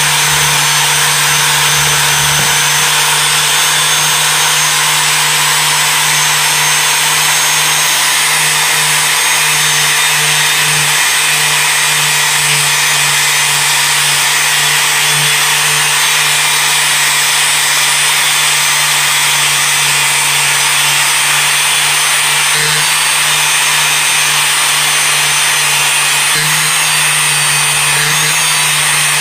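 Angle grinder running continuously and grinding the rust and pitting off a steel hatchet head: a steady motor hum under a constant hiss of abrasive on metal.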